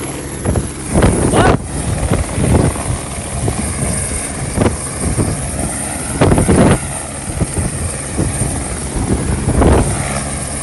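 Helicopter turbine and rotor running steadily, with a low hum throughout and irregular louder surges of wind noise.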